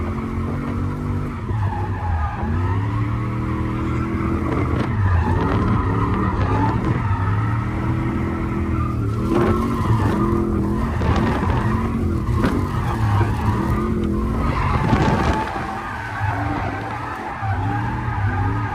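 Drift car, heard from inside the cabin, sliding sideways through a drift. The engine revs rise and fall again and again while the tyres skid and squeal.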